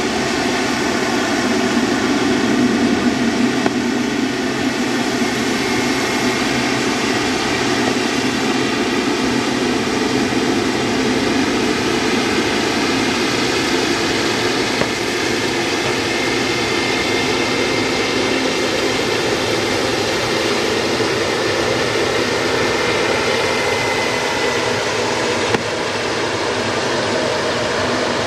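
Jet airliner engines running, a steady rushing noise with a whine, one high tone falling slowly in the last few seconds.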